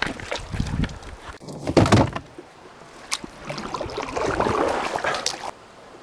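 Handling noise on the camera: knocks, bumps and rubbing close to the microphone as a hand takes hold of it, then a couple of seconds of louder rustling noise that cuts off suddenly.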